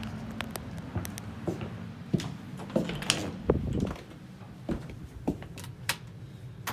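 2011 Goodman gas furnace running with a steady low hum, just after starting up for the heating season. Irregular clicks and knocks sound over it, the loudest about two to three and a half seconds in.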